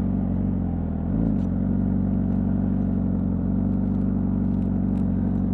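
Honda CBR600RR's inline-four engine running steadily at low revs through the stock exhaust, with one short rise and fall in revs about a second in.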